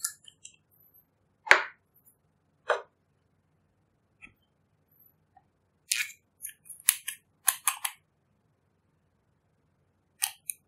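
Sharp plastic clicks and snaps from makeup containers being twisted open and handled. The loudest comes about a second and a half in, and several follow close together about six to eight seconds in.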